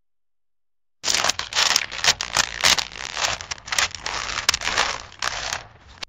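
Silence for about a second, then a sound effect of irregular crackling and tearing bursts of noise that thins out and fades near the end.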